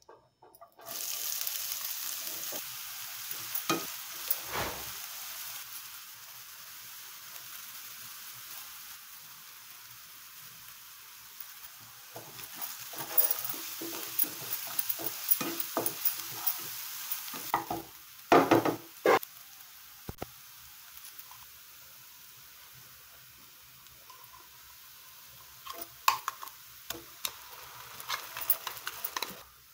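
Chopped onions hit hot oil in a nonstick frying pan and sizzle from about a second in, the sizzle slowly easing as they fry. A spatula stirs and scrapes them around the pan in bursts, and there are a few sharp taps near the end.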